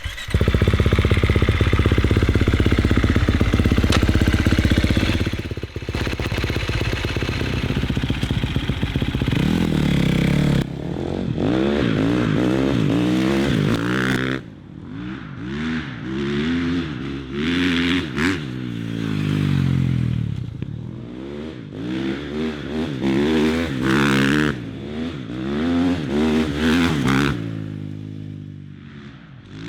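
KTM 350 SX-F dirt bike's four-stroke single-cylinder engine running, loud and steady for about the first ten seconds, then revving up and down over and over.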